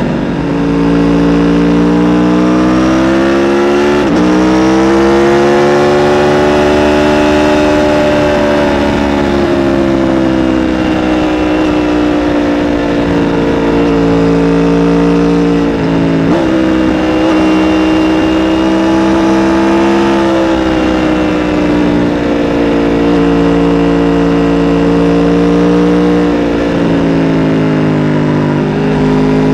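2017 Aprilia RSV4 RR's V4 engine through its stock exhaust, running loud with its pitch slowly rising and falling. The pitch drops sharply and briefly about four seconds in, again about sixteen seconds in, and again near the end.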